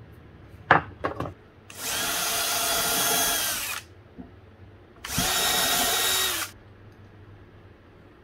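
Festool cordless drill boring a small pilot hole into a spotted gum hardwood board, running steadily in two bursts of about two seconds and a second and a half. Just before the first burst come a few sharp knocks, the loudest sounds here, as hand tools are set down on the bench.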